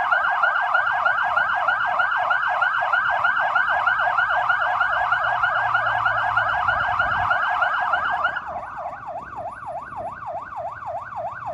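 Several fire engines' sirens yelping together in fast rising-and-falling sweeps, sounded as a commemorative siren salute. About eight seconds in most of them stop, leaving one siren sweeping more slowly until it cuts off near the end.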